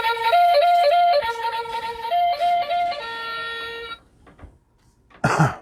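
A short flute-like melody of held notes with quick back-and-forth notes, which cuts off abruptly about four seconds in. A brief loud voice-like sound follows near the end.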